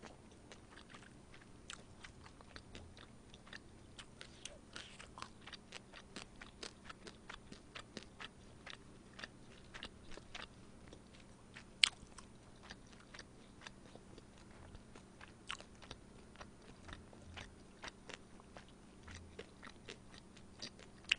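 Close-miked chewing as bossam is eaten: a run of small, quiet wet mouth clicks and crunches, with one sharper click about twelve seconds in.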